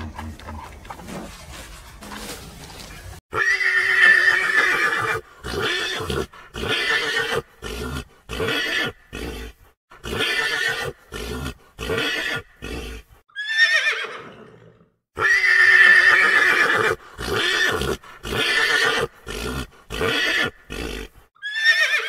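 An equine animal calling, twice over: each time a long loud call, then a run of shorter calls at about one or two a second, ending in a cry that falls in pitch.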